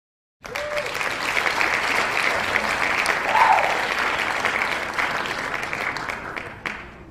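A crowd clapping and cheering, starting suddenly about half a second in and fading away near the end.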